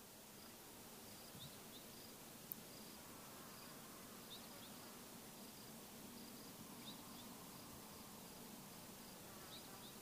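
Faint outdoor ambience: an insect chirps in a steady slow pulse, roughly three times every two seconds. A brief falling high chirp comes every two to three seconds, and a faint low buzz swells through the middle, all over a soft hiss.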